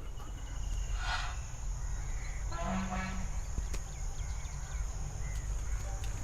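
Goats bleating faintly, a short call about a second in and a longer pitched one around three seconds in, over a steady low rumble.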